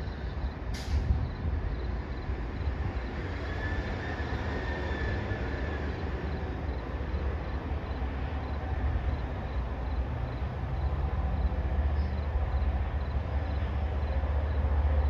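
MBTA diesel commuter rail train approaching, a steady low rumble that grows louder as it nears.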